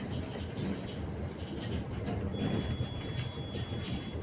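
Cabin noise inside a moving bus: a steady low rumble of engine and road. A thin high whine holds for about two seconds in the second half.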